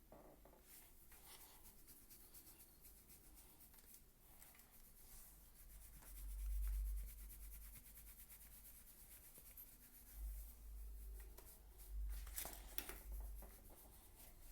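Faint rubbing and scratching, with a few low bumps.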